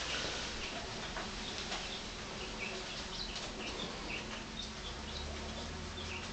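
Young English Cocker Spaniel puppies squeaking softly: many short, high chirp-like squeaks scattered throughout, over a faint rustle of bedding and a low steady hum.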